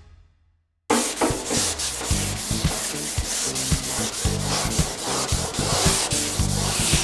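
Primed car fender being wet-sanded with P800 wet-and-dry sandpaper: steady back-and-forth rubbing strokes that start suddenly about a second in.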